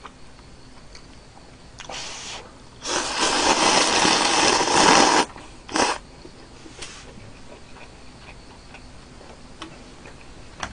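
A person slurping noodles: a short slurp about two seconds in, then a long, loud slurp lasting about two seconds, and a brief final one just after.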